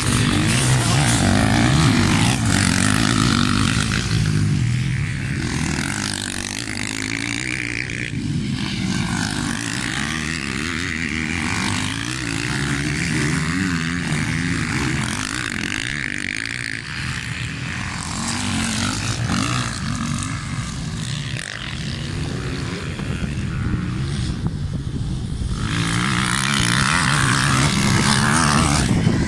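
Motocross dirt bike engines running hard on the track, revving up and down as the bikes accelerate past and draw away, one after another. It is loudest in the first few seconds and again near the end as bikes come close.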